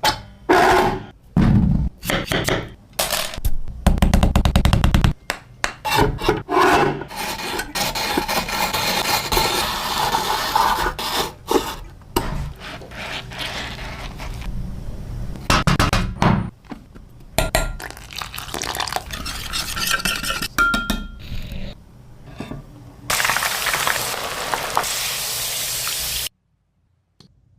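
Food-prep sounds for spiral potatoes: a quick run of knocks, clatters and scrapes from a knife, utensils and dishes. Near the end comes a steady sizzle of frying in hot oil, which cuts off suddenly.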